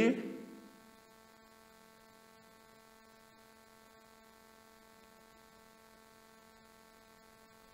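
Faint, steady electrical hum, several even tones held level with no change: mains hum in the recording. The last of a man's speech fades out in the first second.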